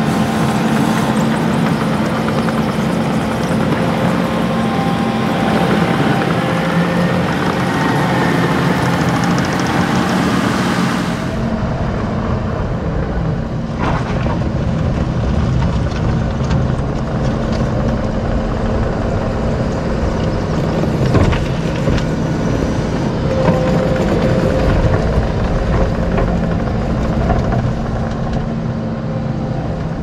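Kubota compact track loader's diesel engine running steadily while it works, pushing and scraping up a pile of sawdust. About eleven seconds in, the hiss at the top of the sound drops away abruptly, but the engine noise goes on.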